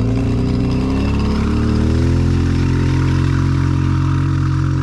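Quad bike (ATV) engine running, its pitch shifting a little over the first couple of seconds and then holding steady.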